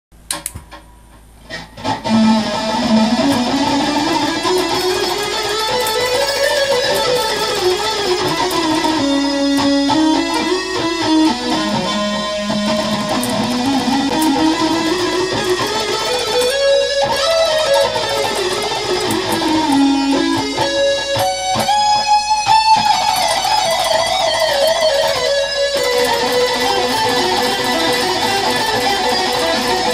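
Electric guitar playing runs of notes that climb and fall in pitch, over and over. It comes in about two seconds in, after a few soft string clicks.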